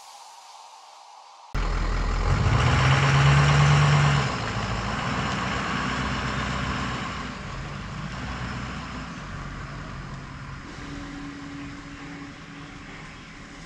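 An engine running, coming in abruptly about a second and a half in, loudest over the next few seconds and then fading steadily.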